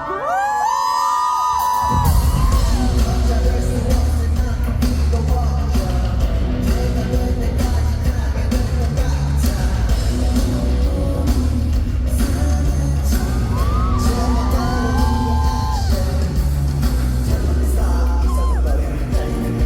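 Live pop song played through a concert hall's PA: a male singer's voice gliding over a sparse backing, then the full track with heavy bass comes in about two seconds in. The vocal line comes back over the beat near the end.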